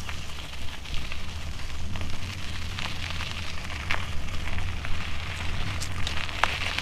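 Dry leaf litter and twigs crackling and snapping in scattered small clicks, over a steady low rumble on the microphone.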